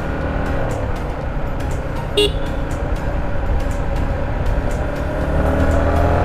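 Yamaha MT-15's single-cylinder engine running on the move, picking up revs near the end, with one short vehicle horn beep about two seconds in.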